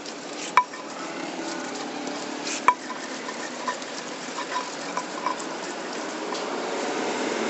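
Stone pestle (ulekan) grinding and scraping wet rujak spice paste around a broad stone mortar (cobek), a steady rasping with a few sharp knocks of the pestle on the stone, the loudest about half a second and just under three seconds in, followed by lighter ticks.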